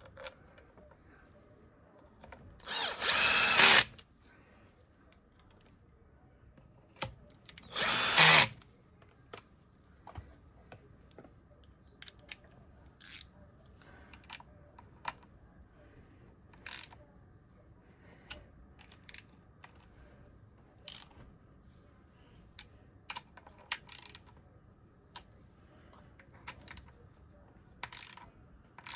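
Handheld power tool run in two short bursts of about a second each, about three and eight seconds in, followed by scattered light clicks and taps of tools and parts being handled.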